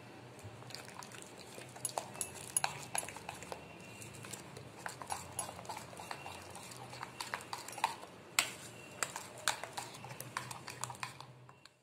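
A hand squishing and slapping a thick, coarse rice and chana dal batter around a bowl to mix in the spices, with irregular soft wet smacks and light clicks.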